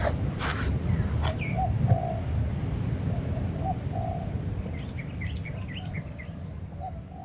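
Spotted dove cooing: short soft coos repeating every second or so, with high thin chirps of small birds in the first two seconds, over a steady low rumble.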